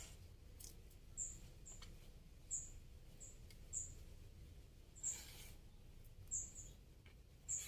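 A small bird chirping, short high chirps about once a second, some in quick pairs. A brief rustle of soil about five seconds in as potting soil is pressed around a plant cutting in a plastic pot.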